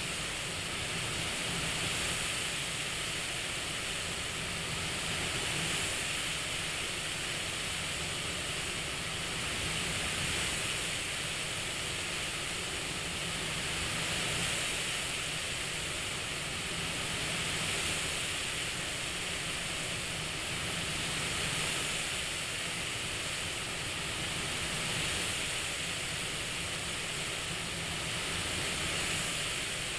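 CPAP machine airflow hiss that swells gently and subsides about every four seconds, following the breathing cycle.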